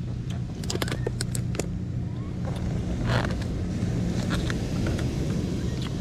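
Clear plastic snack tray being handled and opened: a quick cluster of sharp plastic clicks and crackles about a second in, a short rustle about three seconds in and a few more clicks later, over a steady low rumble.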